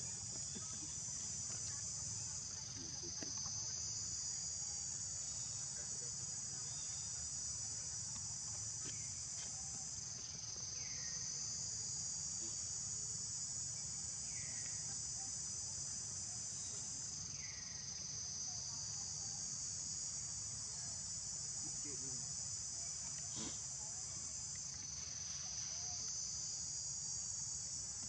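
Dense insect chorus: a steady, high-pitched shrill buzz that swells and eases about every seven seconds.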